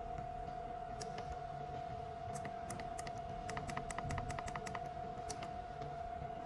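Push-button keys of an Omron E5AZ digital temperature controller clicking as the temperature setpoint is stepped down, with a fast run of about six presses a second near the middle. A steady high-pitched hum sounds underneath throughout.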